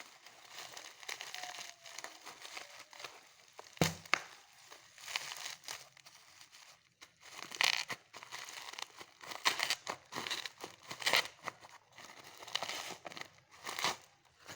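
Plastic packaging crinkling and tearing in irregular bursts as a parcel is unwrapped by hand, with a sharp knock about four seconds in.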